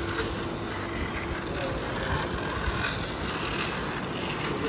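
Steady background hubbub of a crowded competition hall: a constant mechanical-sounding hum with faint, indistinct voices.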